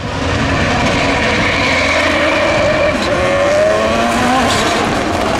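Turbocharged 1,155 cc engine of a 400 hp Citroën Saxo hill-climb race car running hard on a run. Its note rises for a second or so near the middle, with a couple of short sharp cracks.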